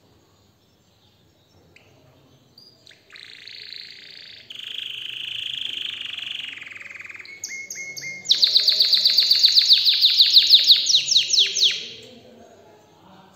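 Domestic canary singing: quiet at first, then from about three seconds in a run of buzzing, rolling trills, and in the second half a loud, fast series of repeated sharp notes, about nine a second, that fades out near the end.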